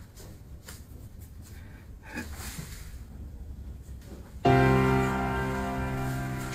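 Faint room sounds with a few soft clicks, then, about four and a half seconds in, background music begins: a sustained piano chord that starts suddenly and slowly fades.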